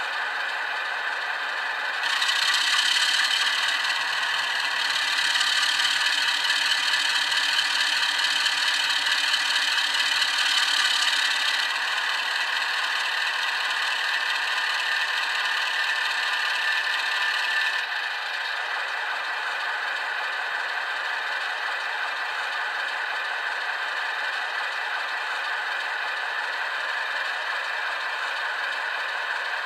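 Model diesel locomotive's sound decoder playing a BR Class 33 diesel engine sound through a small speaker, thin with no bass. The engine note steps up about two seconds in, eases a little around twelve seconds, and drops back to a lower steady running note around eighteen seconds.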